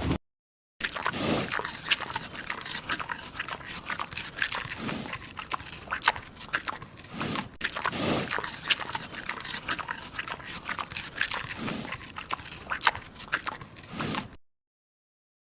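A dog making repeated short sounds every second or two, over a steady crackle of small clicks.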